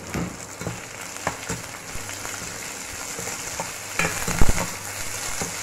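Sliced onions and green chillies frying in hot oil in a stainless steel pan, with a steady sizzle. As they are stirred, the utensil scrapes and knocks against the pan, with the loudest knocks about four seconds in.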